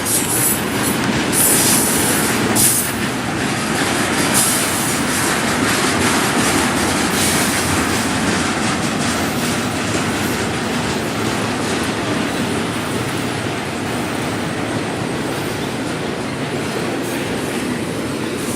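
BNSF intermodal freight train's container cars rolling past, a steady loud rumble and clatter of steel wheels on the rails. Brief high hissing bursts come about two and four seconds in.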